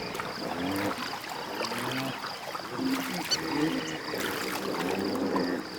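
Hippos calling in the water: a run of short, low grunting calls that bend in pitch, over splashing and a steady high tone.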